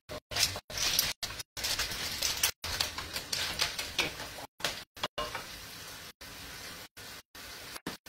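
A frying pan of clams and porcini mushrooms in oil sizzling as it is stirred, with crackles and scraping clicks. After about five seconds it settles to a quieter, steady sizzle. The audio breaks up with brief dropouts throughout.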